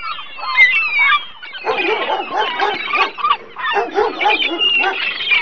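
A clamour of many overlapping animal calls. Higher, chirping calls come first, and denser, lower calls join in about a second and a half in.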